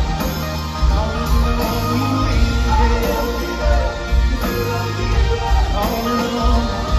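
Live rock band playing through a venue PA, recorded from the crowd: a lead vocal over electric guitar, bass guitar and drums, with a steady heavy bass.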